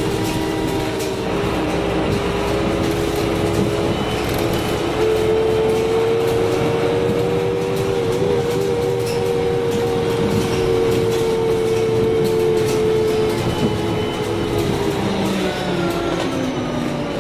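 Karosa B951E city bus running, heard on board: a steady drivetrain whine from its Voith four-speed automatic over the engine and road rumble. The whine rises about five seconds in, holds, then falls away near the end.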